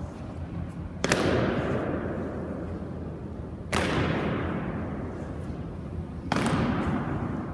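Three heavy booms, evenly spaced about two and a half seconds apart, each dying away in a long echo in a large stone hall.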